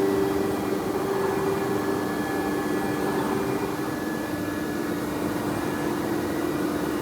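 CNC router running: a steady whine from the spindle over an even rushing machine noise.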